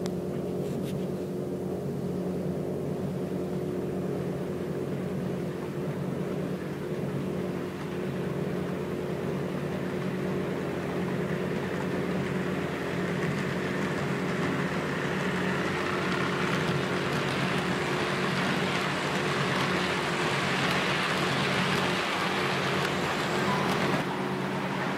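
Model train running along the layout's track, its wheel-and-motor rush growing louder through the second half as it draws near and dropping away near the end, over a steady low hum.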